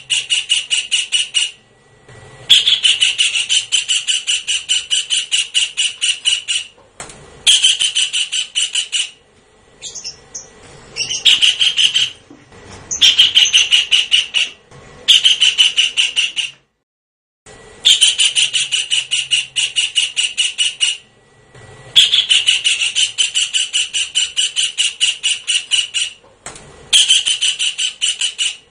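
Kingfisher calling in rapid series of harsh repeated notes, several a second. Each series lasts two to four seconds, with short breaks between series. This is a kingfisher call recording played as a lure to draw kingfishers in.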